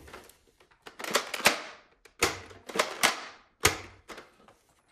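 Plastic clicking and knocking as a toy soft-bullet blaster and its foam darts are handled in their box, in several quick clusters of clatter.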